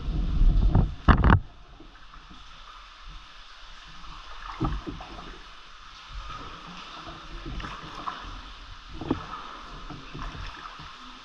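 Kayak paddling in still water: a few loud knocks and splashes in the first second and a half, then softer paddle strokes every couple of seconds.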